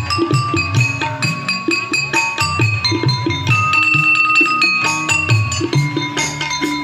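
A jal tarang, tuned bowls struck with sticks, playing a quick melody of short ringing notes, over tabla and keyboard.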